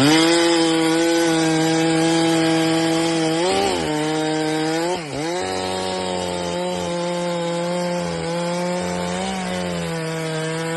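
Chainsaw held at high revs cutting through logs, its engine note dipping briefly under load twice, about a third and about halfway in, and recovering each time.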